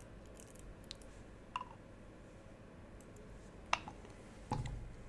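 A few faint, scattered clicks and light taps from small fly-tying tools and materials being handled at the vise, with a soft knock near the end.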